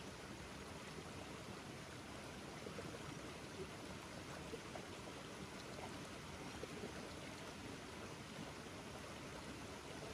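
A stream running over rocks: a steady, even rush of water, with a few faint small clicks on top.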